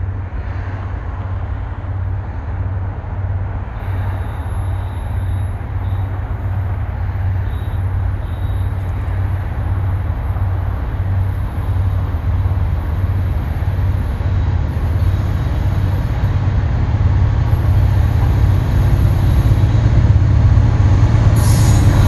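Diesel freight locomotive rumbling with a low, regular engine throb as it approaches, growing steadily louder.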